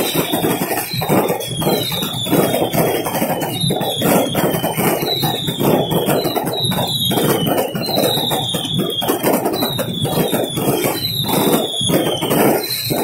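Fireworks going off at close range: a dense crackle of small bangs and pops, with a string of high whistles, each falling in pitch, repeating a little more than once a second.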